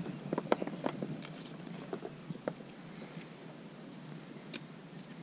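Water hyacinth stems and leaves rustling and snapping as they are pushed through: a scatter of short crackles and clicks, busiest in the first two seconds and thinning out after that.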